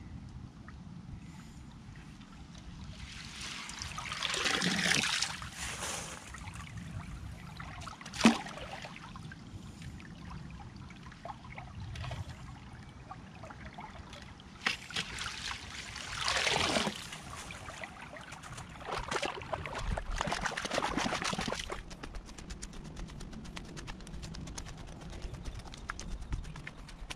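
Water in a small concrete irrigation ditch sloshing and splashing in several bursts as a long-handled mesh net scoops fallen leaves out of it, with one sharp knock about eight seconds in. Near the end, footsteps crunch through dry leaves.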